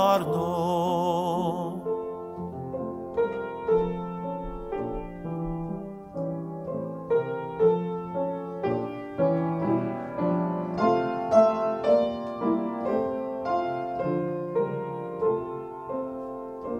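A male singer's held final note, wavering with vibrato, over grand piano until about two seconds in. Then the grand piano plays on alone in a classical-style accompaniment to a Slovak folk song.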